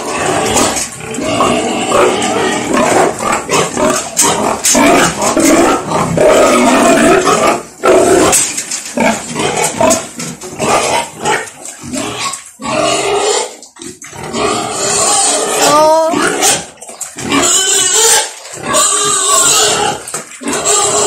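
A sow eating wet pig feed from a basin: a loud, continuous run of chomping and slurping.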